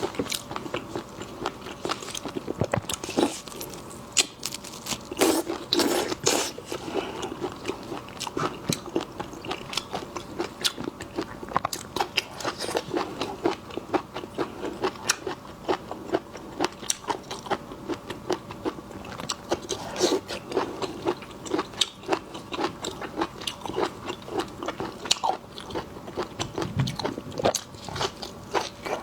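Eating seafood: a steady string of crunches, cracks and snaps from biting into and chewing shellfish.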